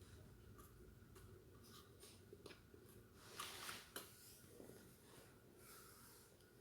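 Faint handling sounds during ceiling-fan assembly: scattered small clicks, a brief scraping rustle about three and a half seconds in, and a sharper click just after.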